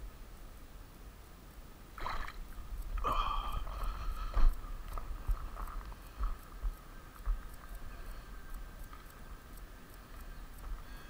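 Rustling and knocking of clothing and gear against a body-worn camera while walking up a gravel bank. A louder stretch of scuffling comes about two seconds in and ends in a sharp knock, followed by a few lighter knocks over a low rumble.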